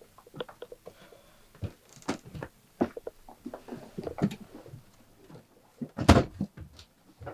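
Footsteps and rummaging among stored boxes: scattered light knocks, rustles and clicks, with one louder thump about six seconds in.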